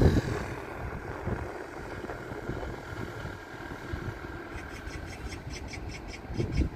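Airliner jet engines running, a steady low rumble with a faint high whine, and wind buffeting the microphone. From about four and a half seconds in, a quick run of high ticks comes in, about six a second.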